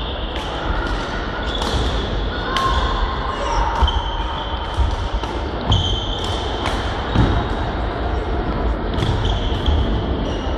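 Badminton rackets striking shuttlecocks in rallies on several courts, with sharp pops scattered through. Shoes squeak briefly on the sports-hall floor, and voices murmur in the background.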